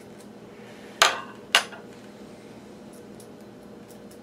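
Two sharp clinks of a small hand tool knocking on a hard workbench surface, about half a second apart, the first louder.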